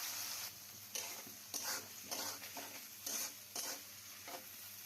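Chopped onions sizzling in hot oil in a kadai, stirred with a spatula that scrapes the pan in about six short strokes.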